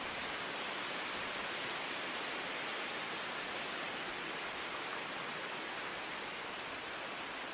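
Steady, even rushing of running water, unchanging throughout.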